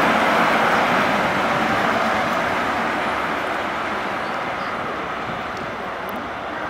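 Rear Class 43 power car (43171) of a First Great Western High Speed Train pulling away, its MTU diesel engine and the train's wheels running past close by. The sound fades steadily as the train draws away.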